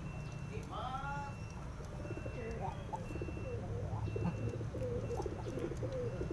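Several domestic pigeons cooing, the coos overlapping and growing denser from about two and a half seconds in. A short higher call stands out about a second in.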